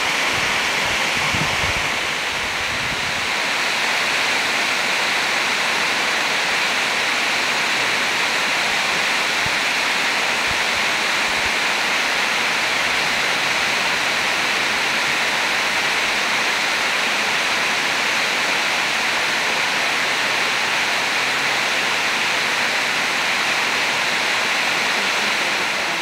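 Waterfall cascading over rock ledges: a steady rushing hiss of falling water, even in level throughout.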